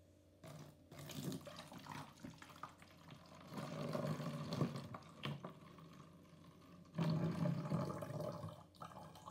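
Liquid pouring from one plastic bottle into the neck of another empty plastic bottle, coming in uneven glugs and spurts. It falls off near the middle, then starts again strongly about seven seconds in.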